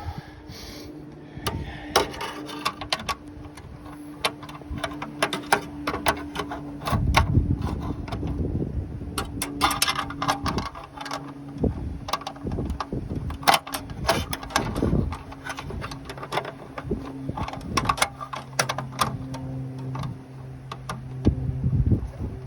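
Hand tools on metal: a screwdriver and pliers clicking, tapping and scraping irregularly while the bonnet release cable is tightened into its fitting. A steady low hum runs underneath.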